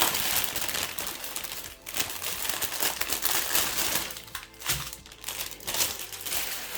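Crinkly plastic packaging around a diamond painting kit's bags of drills, handled and crumpled in uneven crackling stretches with short lulls.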